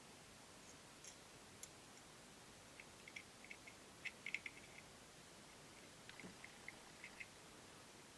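Faint, scattered small clicks and ticks of small hard parts being handled, bunched together about three to five seconds in and again around six to seven seconds, over near-silent room tone.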